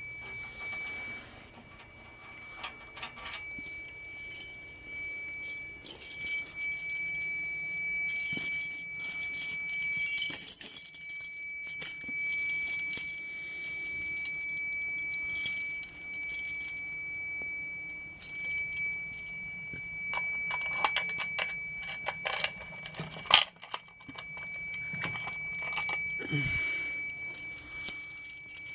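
A control panel's alarm buzzer sounding one steady high-pitched tone, breaking off briefly and starting again, which signals that the panel has tripped. Sharp clicks and metallic rattles of handling sound over it.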